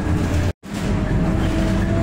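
Cabin noise inside a moving MAN A22 single-deck bus: a steady engine and drivetrain hum with road rumble. The sound cuts out completely for a split second about half a second in, then resumes.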